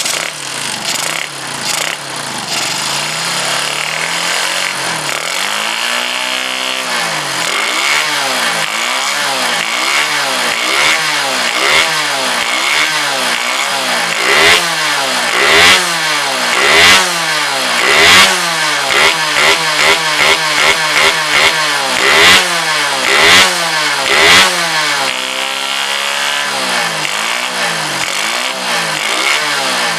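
Bored-up Suzuki Shogun 125 engine with a Thunder piston running after its rebuild, the throttle blipped over and over in quick rising-and-falling revs about once a second after a few seconds of steadier running.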